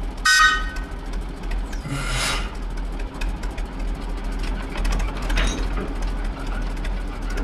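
Small narrow-gauge diesel shunting locomotive running slowly under a steady low engine drone. About a third of a second in there is a short, high-pitched tone, and a brief hiss follows about two seconds in.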